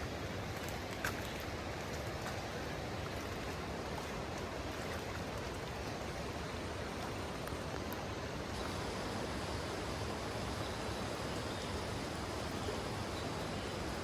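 Steady rushing of water, rain or a rainforest river, with a few faint drip-like ticks in the first second or so.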